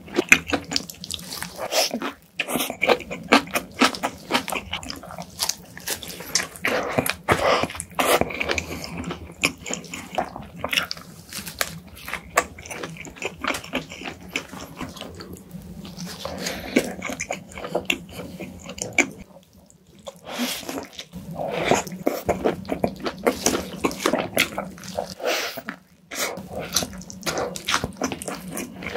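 Close-miked ASMR eating of a burger: dense wet chewing, biting and lip-smacking sounds, with brief pauses about 2, 20 and 26 seconds in.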